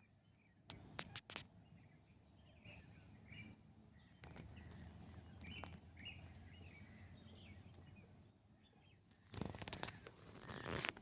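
Faint birds chirping in short scattered calls over a quiet outdoor background. There are a few sharp clicks about a second in and a louder rustling noise near the end.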